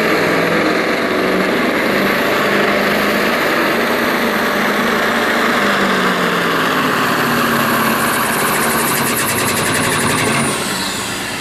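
Diesel engine of a street semi tractor under full load, dragging a pulling sled, running loud and steady. Near the end its note drops off and a high whistle falls away.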